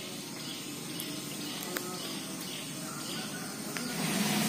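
Quiet outdoor ambience with faint bird chirps and a few small clicks; a steady hiss grows louder near the end.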